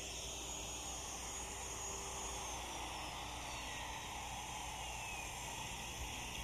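Handheld electric router running with a high whine while cutting a hinge mortise in a door jamb, then switched off; its pitch falls steadily over about three seconds as the motor spins down.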